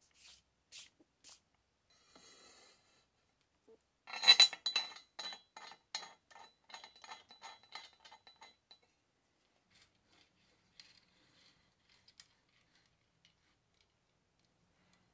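Aluminium extrusion pieces clinking against each other as they are handled. One loud ringing clink comes about four seconds in, then a run of lighter clinks, about three a second, that fades out over the next four seconds. Before that there are a few faint brushing swishes.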